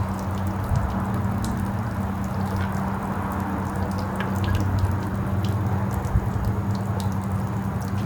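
British Seagull 102 two-stroke outboard engine running steadily at low speed with no gearbox fitted, over water splashing and dripping from its garden-hose cooling supply.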